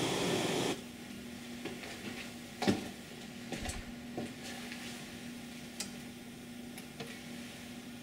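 Amplified residual hiss and hum of a high-gain phonostage cuts off abruptly in the first second as the signal path is muted. After that a faint steady hum remains, with scattered clicks and knocks from cables and SP capacitor packs being handled and disconnected, the loudest about three seconds in.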